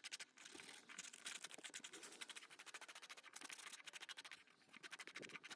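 Faint, quick, repeated scratching strokes of sandpaper rubbed by hand on wood, with a brief pause near the end.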